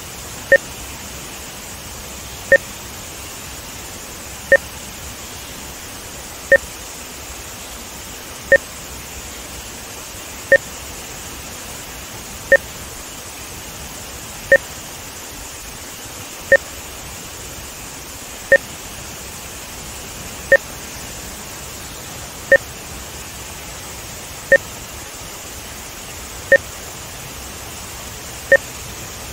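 Short electronic test beeps, one exactly every two seconds, each a brief two-tone blip: timing markers inserted for measuring audio-video sync. Under them runs a steady rushing noise of water pouring through the dam rapids.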